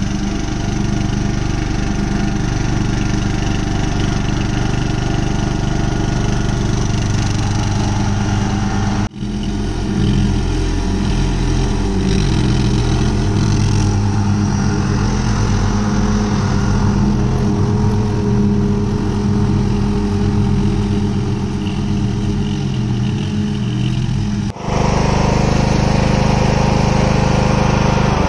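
Castlegarden XT 190 HD lawn tractor's engine running steadily while mowing, its pitch wavering a little. The sound breaks off abruptly twice and picks up again at once.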